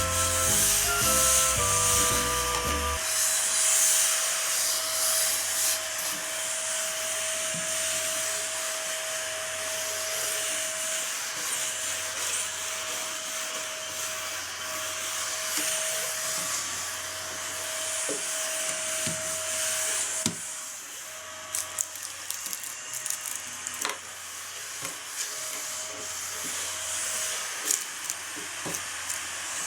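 Small battery-powered Daiso tabletop vacuum cleaner running, a steady airy hiss with a thin steady whine. From about twenty seconds in, scattered sharp clicks and rattles break in over it. A short snatch of music opens the stretch.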